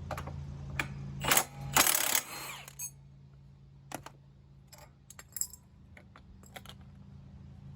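Metallic clattering and sharp clinks from metal parts and tools being handled during small-engine work. A loud run of clatter comes about one and a half to two and a half seconds in, followed by scattered light clicks. A steady low hum drops away at the same time, about two seconds in.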